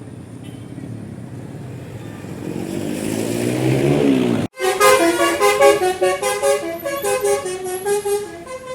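A bus comes closer, its engine and road noise growing louder and rising in pitch; then, after a split-second break about halfway, a basuri telolet horn, a set of multi-note air horns, plays a quick melody of changing notes.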